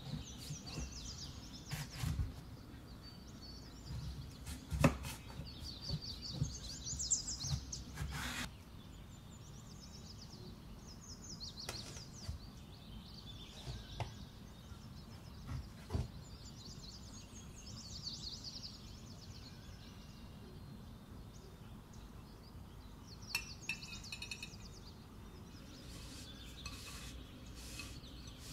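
Knife cutting through a baked pancake crust and knocking on a wooden board, with sharp knocks mostly in the first eight seconds and a few single ones later. Small birds chirp throughout.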